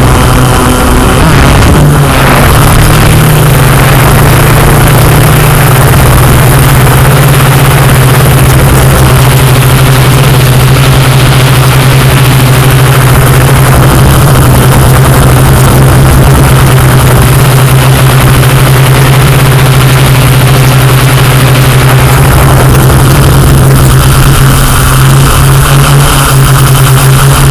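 Yuneec Q500+ quadcopter drone's motors and propellers running with a steady loud hum and rushing noise, the pitch stepping up slightly about two seconds in.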